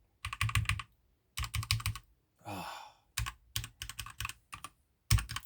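Keychron K2 mechanical keyboard with red linear switches being typed on in quick bursts of key clacks, with a short breathy sound about halfway through. The owner finds the keys still way too loud.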